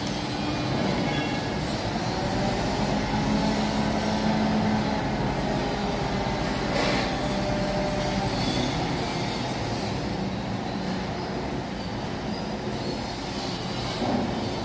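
Truck-mounted mobile crane's engine and hydraulics running steadily, with a whine of held tones that waver slightly in pitch; a short sharp noise about seven seconds in.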